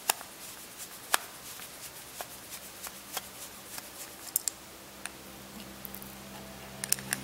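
Sharp clicks and light scraping as a long metal screwdriver prods and pries at the LED board of a Philips LED bulb, with three quick clicks close together near the end. Background music fades in during the second half.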